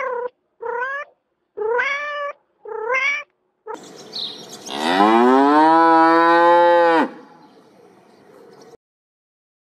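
A domestic cat meowing several times in short, rising calls, then a cow mooing once in a long, loud moo that cuts off suddenly.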